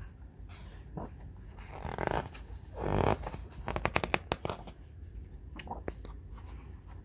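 Paper pages of a picture book being turned and handled: two soft swishes, then a quick run of flapping, rustling clicks, and a few more near the end.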